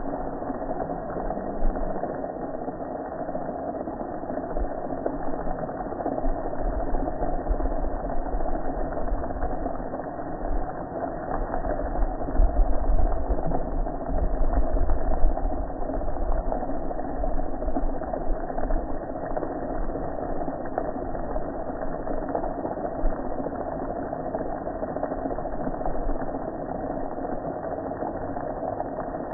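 Pressure washer running steadily, its spray hitting a gas grill and water running off, with a deeper rumble swelling for a few seconds partway through.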